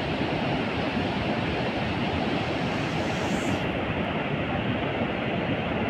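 Fast, glacier-fed mountain river rushing over boulders: a steady, unbroken wash of white-water noise.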